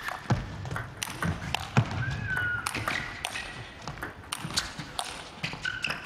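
Table tennis rally: the ball clicking off paddles and the table again and again at an irregular pace, with a short squeak of shoes on the court floor about two seconds in.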